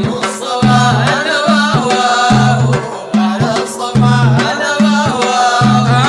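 Sudanese madeeh praise song: male voices chanting a sung melody over a steady, evenly repeating drum beat.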